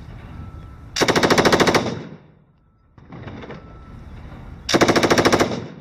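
Belt-fed military machine gun firing two short bursts of rapid automatic fire, each about a second long, the first about a second in and the second near the end.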